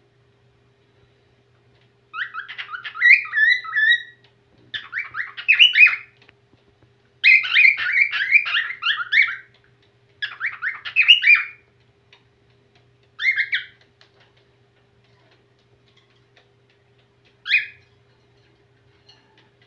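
Whiteface cockatiel singing a warbling, whistled song in several phrases of one to two seconds with short pauses between them, then a shorter phrase and finally one brief call near the end.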